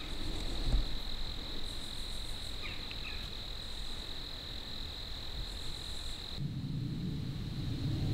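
Crickets chirring in a steady high trill, with a few short, faster insect rasps above it and a soft thump near the start. About six seconds in the trill cuts off suddenly and a low rumbling noise takes its place.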